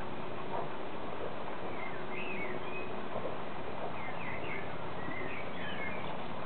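Steady outdoor hiss with a small songbird singing short twittering phrases twice, about two seconds in and again about four seconds in.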